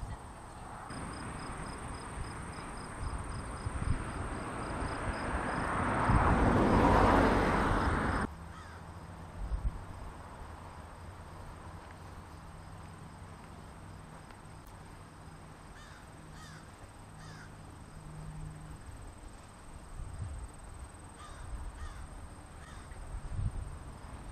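A broad rush like a passing vehicle on the road swells over the first several seconds, then cuts off abruptly. A quieter stretch follows, with a steady thin high drone of insects and a few faint short animal calls.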